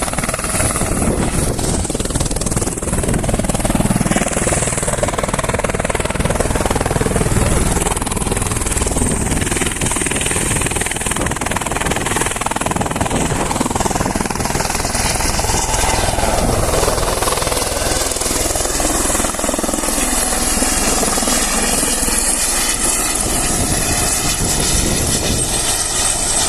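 Helicopter engine and rotor running loud and steady, around takeoff.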